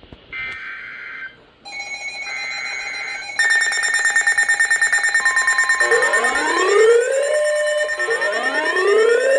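Emergency Alert System tones between alerts. First come short warbling data-tone bursts, the digital header and end-of-message codes. From about three seconds in, a loud, pulsing electronic alert tone with several steady pitches starts, and about six seconds in a rising whoop sweep joins it, repeating about every second and a half.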